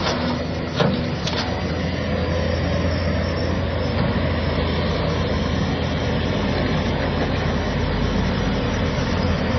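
Excavator's diesel engine running steadily under load while it loads a tipper truck, with a couple of short sharp knocks about a second in.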